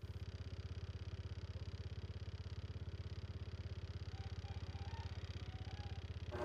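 A small engine running steadily at idle, with a low hum and an even, rapid beat of firing pulses; it cuts in abruptly at the start.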